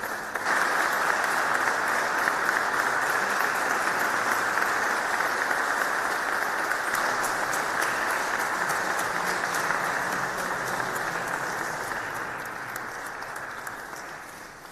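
Audience applauding, swelling about half a second in and dying away over the last few seconds.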